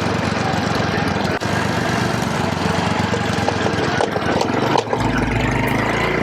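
Hero Honda CD100 DLX's small single-cylinder four-stroke engine running under way, a fast steady putter, with wind and road noise over it. A deeper low rumble joins about five seconds in.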